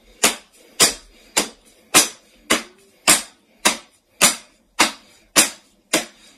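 A steady run of about eleven sharp smacks, a little under two a second, as a hand-held object is swung down again and again to strike something.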